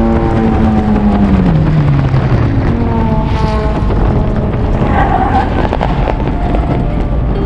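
K20-swapped Honda Integra race car engine running hard under heavy wind and road noise. Its pitch drops about a second in as the car slows, then holds lower.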